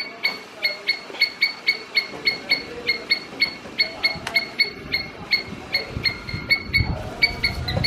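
Squirrel calling, a long, even series of short, sharp chirps at about three a second. A low rumble comes in near the end.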